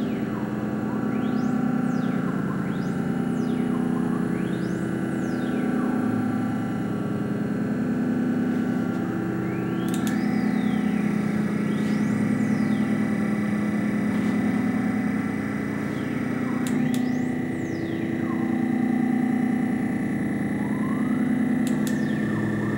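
Synthesized electronic soundscape: a low drone that swells and fades every couple of seconds, under high tones that sweep up and down over and over. A sustained high pitch jumps to a new note twice, each time with a sharp click.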